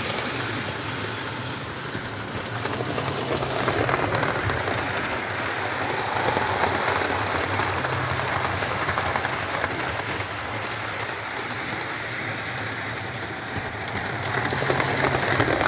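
Model Class 67 diesel locomotives hauling coaches around a model railway layout: a steady running hum and wheel rattle over the track. It swells louder about four seconds in, and again near the end, as trains pass close by.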